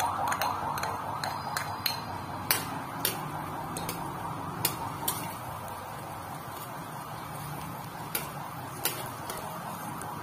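Chopped garlic and onion sizzling steadily in melted butter in a stainless steel pan, while a metal spoon stirs them and clinks sharply against the pan about a dozen times, most often in the first half and again near the end.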